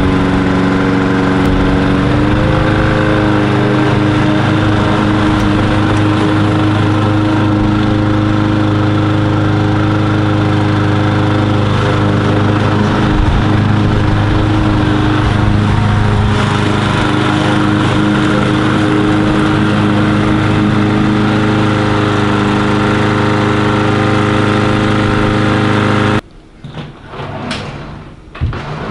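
Petrol lawn mower engine running steadily, its pitch stepping up about two seconds in. It cuts off suddenly near the end, leaving a few faint knocks.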